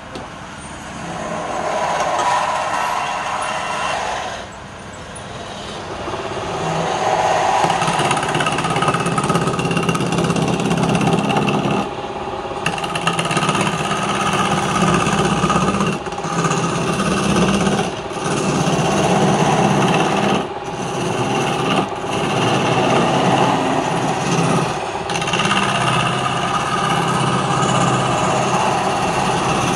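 Wood lathe running while a hand gouge cuts into a spinning wooden blank, roughing it from octagonal to round: a steady motor hum under a rough, scraping cutting noise that drops out briefly several times as the tool leaves the wood.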